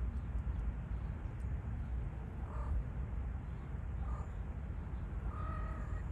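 Steady low rumble on the microphone, with three short animal calls, about two and a half, four and five and a half seconds in. The last call is the longest and most even in pitch.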